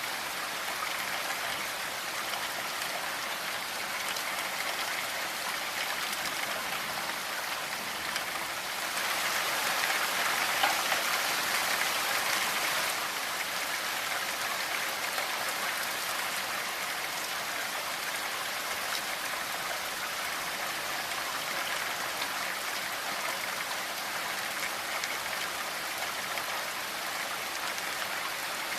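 Steady rainfall, a dense hiss of drops, swelling a little heavier for a few seconds about a third of the way in.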